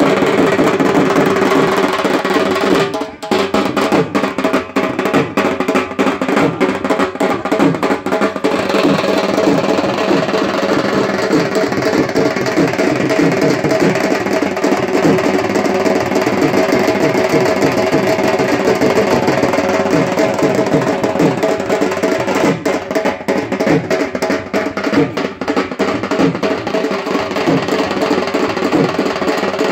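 Loud, continuous music with steady drumming, with a brief drop in level about three seconds in.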